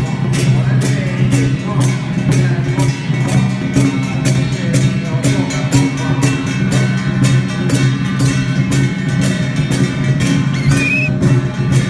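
Loud music with a steady quick beat of about three strokes a second over a held low tone.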